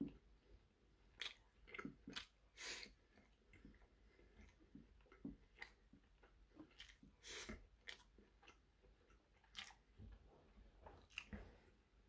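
Quiet, close-up chewing of a meal of steak, eggs and rice, with scattered short sharp clicks of a metal fork against the frying pan and a small sauce dish.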